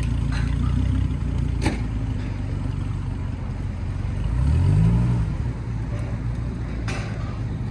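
Vehicle engine idling, with one brief rev that rises and falls about four and a half seconds in, and a single sharp knock a little under two seconds in.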